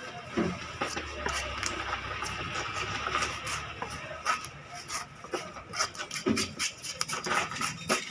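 Long fish-cutting knife slicing through pomfret and scraping and knocking on a wooden chopping block: a run of short, sharp knocks and scrapes, with a duller thump about half a second in and another about six seconds in.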